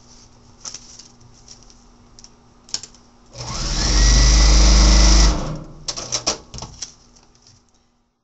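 Electric sewing machine running for about two seconds, stitching a seam through quilt fabric and its paper foundation, starting up smoothly and stopping. Light clicks and rustles of paper and fabric being handled come before and after it.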